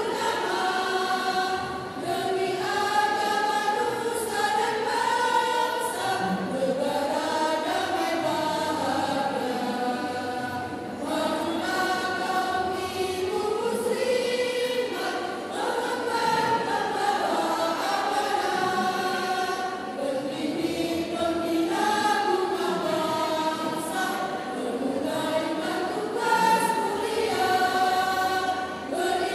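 Women's choir singing together, holding long notes that step up and down from one to the next.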